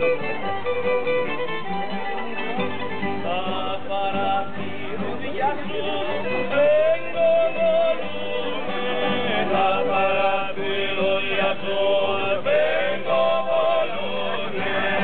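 Folk music played by a small group: a fiddle carrying the melody over guitar accompaniment, with singing.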